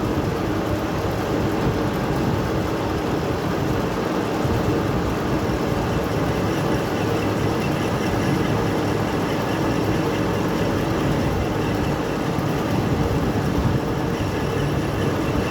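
Metal-turning lathe running steadily, its motor and gearing giving a constant mechanical drone.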